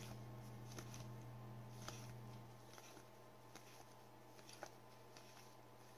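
Faint, scattered light taps and clicks of trading cards being handled, over a steady low hum that drops in level about halfway through.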